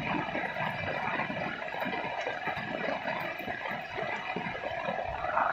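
Steady rushing noise of a river in flood, the water running fast and turbulent, getting louder near the end.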